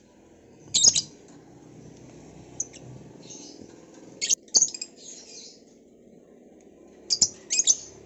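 Caged lovebirds chirping, with loud, high-pitched calls in three clusters: about a second in, around the middle, and near the end.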